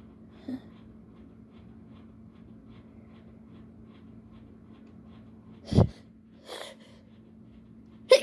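A person's sneeze build-up: quiet breathing, a sharp loud catch of breath about six seconds in, a shorter breathy inhale after it, then a loud sneeze at the very end. The sneezes are set off by allergies and chikkni.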